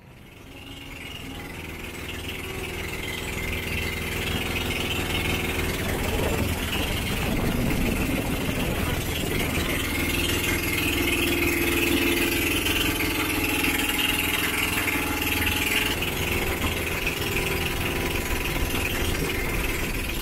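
Engine of an outrigger pump boat running steadily under way, swelling over the first few seconds and then holding an even drone.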